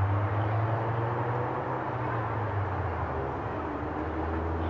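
Open-air background noise with a steady low mechanical hum; no voices and no ball or glove impacts.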